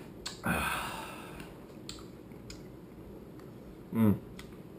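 A man eating ice cream from a bowl. He lets out a breathy exhale about half a second in, a few light spoon clicks follow, and a short hummed "mm" comes about four seconds in.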